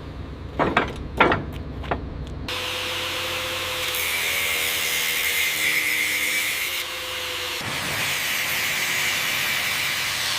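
A few knocks over a low rumble. About two and a half seconds in, a power tool starts cutting with a steady harsh hiss and a held whine; the whine drops out about seven and a half seconds in while the hiss goes on.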